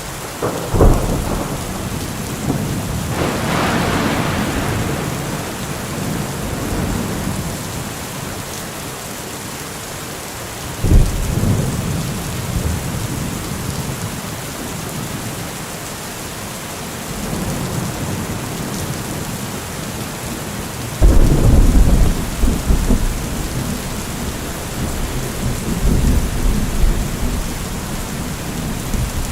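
Thunderstorm: steady rain with repeated thunder. A clap about a second in, a long rumble soon after, another sharp clap about eleven seconds in, and the loudest clap, followed by drawn-out rumbling, a little after twenty seconds.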